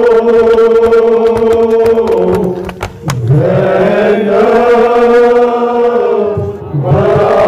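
Men chanting a noha, a Muharram mourning lament, in long drawn-out held notes. The chant breaks briefly about three seconds in, where a few sharp strikes are heard, and dips again near the end before the next phrase.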